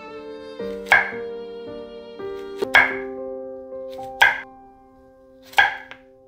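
Kitchen knife slicing through a zucchini and knocking on a wooden cutting board: four sharp cuts, about one every second and a half, with soft music playing underneath.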